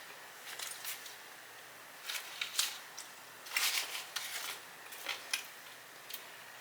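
Close-miked chewing of a toasted steak-and-cheese sub with vegetables: irregular wet, crackly mouth clicks and crunches, about a dozen over the few seconds, with the busiest cluster just past the middle.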